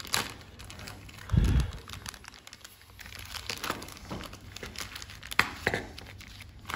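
Clear plastic zip-lock bag crinkling and crackling as fingers handle it and work at its zip to open it, with one dull thump about a second and a half in.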